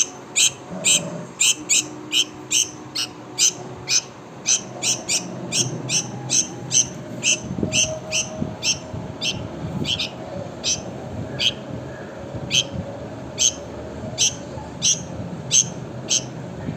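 A small bird giving short, high chips over and over, about two or three a second, spacing out a little in the second half.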